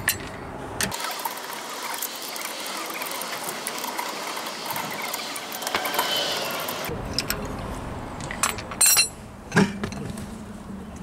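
Ratchet wrench clicking as the lug nuts are spun off the rear wheel of a 2011 Honda CR-V, with metallic clinks and a few sharp knocks near the end as the nuts and wheel come off the hub.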